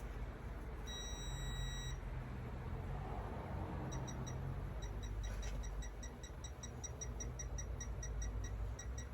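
Electronic torque wrench beeping while a bolt is torqued to a 220 foot-pound setting: one steady beep about a second in, then a run of short quick beeps, about four a second, from midway on.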